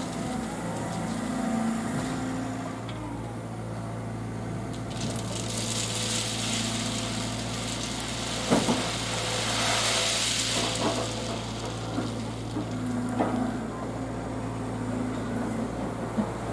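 Diesel engine of heavy track-construction machinery running steadily, with a rushing hiss that swells and fades in the middle and a few sharp knocks, the loudest about halfway through.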